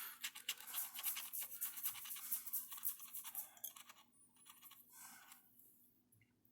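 Quick, fine scratching strokes across a scratch-off lottery ticket as the coating is rubbed off, fading after about four seconds with a few faint strokes near five seconds.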